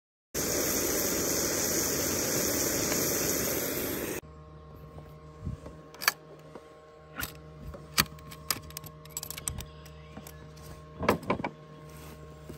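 A loud steady hiss lasts about four seconds and cuts off. Then come a series of sharp clicks and knocks as the stainless steel latches of an Engel cooler are flipped open, the lid is lifted and things inside are handled.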